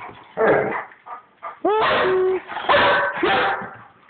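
Small dogs play-fighting, giving a few loud barks, the loudest about two and three seconds in.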